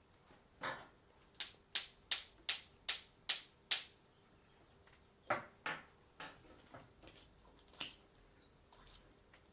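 A series of sharp taps or knocks made as hand-made film sound effects: a single tap, then seven evenly spaced at about three a second, then a few more at irregular intervals.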